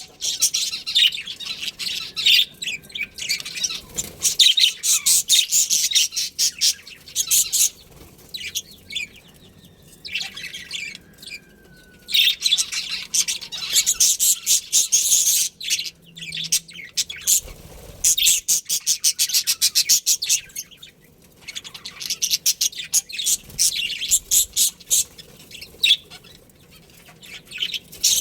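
Budgerigars chirping in fast runs of high chirps, with a few quieter pauses between bouts.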